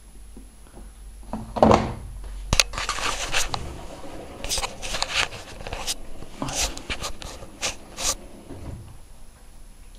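Samsung WF9700N3W front-loading washing machine on a wool wash: a knock about two seconds in, then irregular swishes and clicks as the wet load of blankets turns in the drum.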